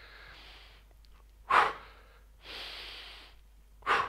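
A man breathing hard from the effort of lunges. Two sharp, loud exhales come about two and a half seconds apart, each after a slower, softer inhale.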